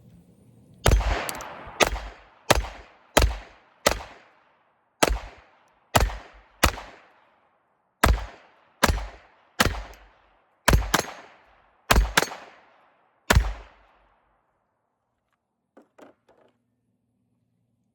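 Taurus TX22 .22 LR pistol firing a full magazine of mixed Winchester and Aguila rounds: about fifteen sharp shots at an uneven pace, each trailing off briefly. A few faint clicks follow near the end.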